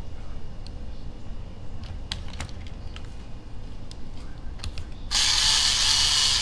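A few light clicks of small parts being handled, then about five seconds in a small electric screwdriver runs steadily for about a second and a half, driving a link bolt into an RC crawler's chassis.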